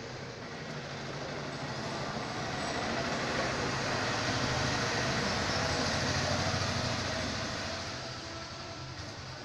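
A passing vehicle's rumbling noise, swelling to a peak about halfway through and then fading away.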